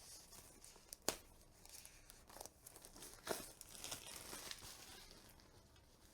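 Plastic wrapping being handled and pulled off a boxed tarot deck, crinkling and tearing faintly, with sharp clicks about a second in and just past three seconds.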